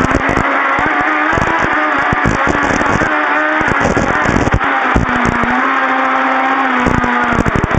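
1800 cc rear-wheel-drive Toyota Starlet rally car's engine running hard at high revs, its pitch dropping and climbing between steady stretches, with many sharp knocks and clatter throughout.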